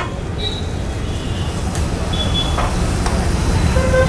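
Steady low rumble of road traffic, with a few short high-pitched tones and a longer pitched tone near the end.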